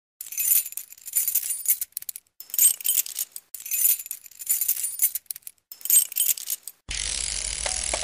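Title-sequence sound design: bright, jingling, shimmering swells come about once a second with short silences between them. About seven seconds in, a fuller, steady music bed with low end takes over.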